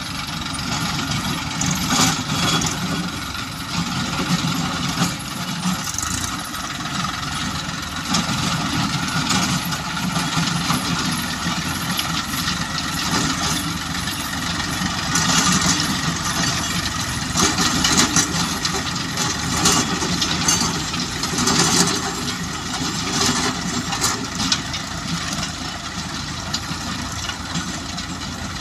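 Diesel tractor engines, the nearest a Massey Ferguson 241 DI, running steadily under load as they pull rotavators through the soil. The sound swells and eases every few seconds, with scattered clicks over the engine noise.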